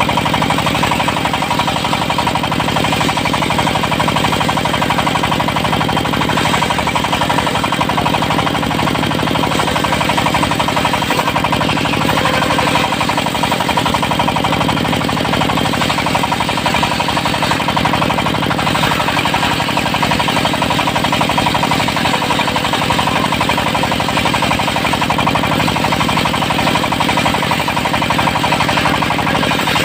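Diesel-powered portable circular sawmill running steadily, the engine's rapid knocking beat under the saw blade's steady whine as it rips teak.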